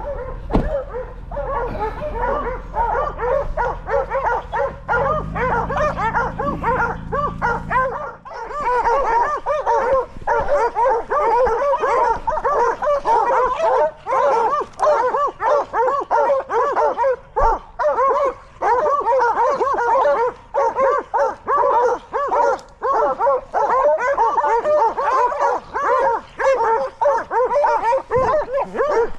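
A pack of coyote hounds baying and bawling together without a break, many voices overlapping. A vehicle engine idles underneath for the first eight seconds or so, then cuts off.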